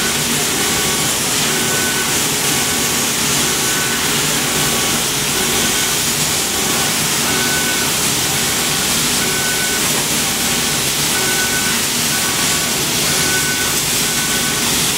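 Laser cutting machine at work cutting fabric: a steady, loud hiss of air, with short high whining tones coming and going every half second or so as the cutting head sweeps back and forth along its lines.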